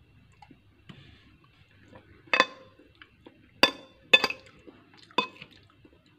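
Metal spoon clinking against a glass bowl four times, sharp knocks with a short ring.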